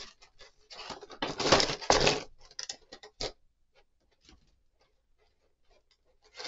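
Clear plastic blister tray crinkling and crackling as it is handled, in a dense burst about a second in, then a few scattered clicks, trailing off to faint ticks.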